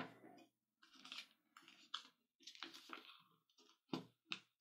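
Faint rustling and crinkling of a sheet of paper as fingers fold it and press the crease flat, in irregular scratchy strokes, with a sharper crackle at the start and a couple of short sharp taps near the end.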